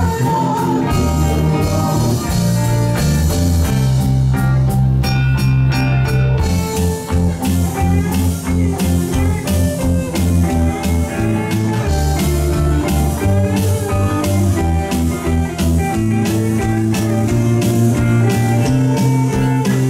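Live rock band playing an instrumental passage on electric guitars, bass guitar, keyboard and drum kit, with a steady drum beat.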